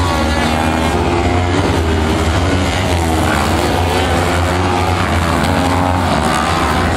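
Several kart-cross buggy engines racing on a dirt track, revving up and down at overlapping pitches over a steady low drone.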